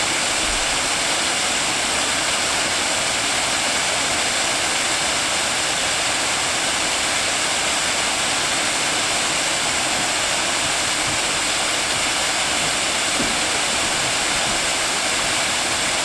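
A cascade waterfall pouring over rocks into a pool: a steady, unbroken rush of falling water.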